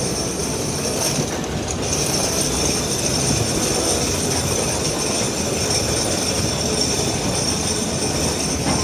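Vintage wooden electric tram running on its rails, heard from inside the car: a steady rumble with a continuous high wheel squeal over it.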